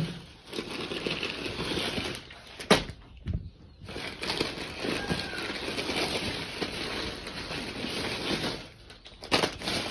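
Clear plastic bags of cashews crinkling and rustling as they are handled, with a couple of sharp taps.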